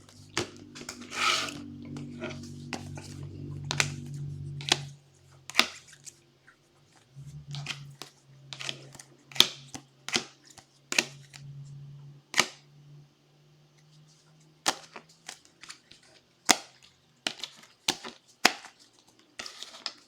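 Items being moved and set down on a tabletop, a scattered string of sharp clicks and taps like plastic card holders and packaging being handled. A low steady hum runs under the first three quarters.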